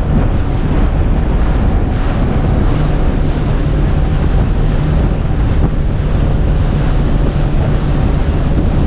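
Boat under way: heavy wind buffeting the microphone over water rushing past the hull and a steady low engine hum.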